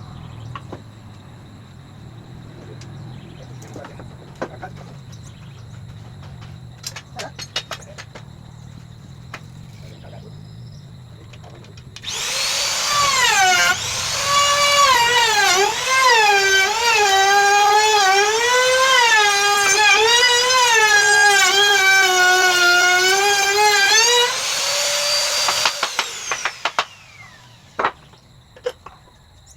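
Electric drill running under load in wood for about fourteen seconds, its whine wavering and dipping in pitch as it bites, then winding down. Before it come a few faint clicks and knocks of handling.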